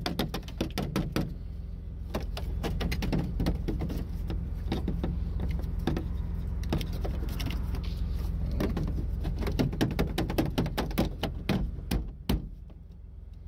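Excavator engine running steadily in the cab, under a string of sharp knocks and thumps as a hand bangs and handles the cab's plastic panel around a heater that won't warm the cab. The knocks thin out near the end.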